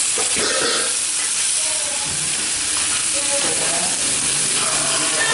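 Eel and green banana stir-frying in a pot, a steady sizzle with the sound of stirring.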